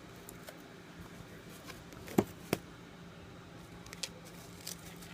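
Quiet handling of a parcel's contents: faint rustling with scattered light clicks, and two sharper taps about two seconds in.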